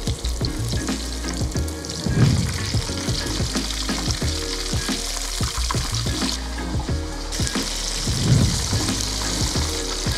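Battered fish fillets deep-frying in hot oil, a steady busy sizzle and crackle of bubbling fat.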